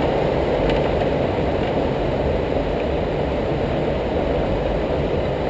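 Steady low rumble and wash of surf surging against rocks, with the low hum of an idling boat engine underneath; no distinct events.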